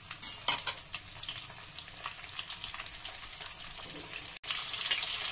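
Whole cauliflower frying in hot mustard oil in an iron kadai: a steady sizzle with crackling pops. It cuts out for an instant a little after four seconds, and the sizzle is louder after that.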